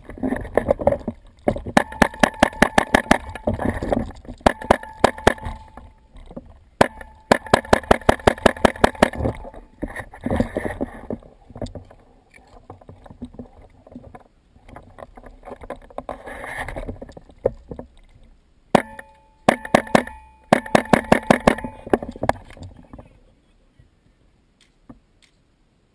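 Airsoft rifle firing on full auto: several rapid bursts of evenly spaced shots, about ten a second, the longest lasting around two seconds, with quieter gaps between them and the firing tailing off near the end.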